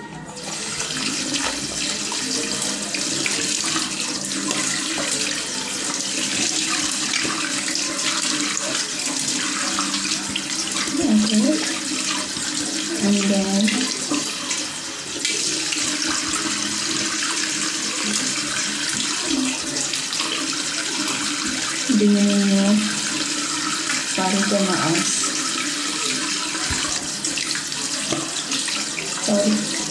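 Water running steadily from a tap into a bathroom sink as a soaped face is rinsed with the hands. A few brief voice sounds come through it.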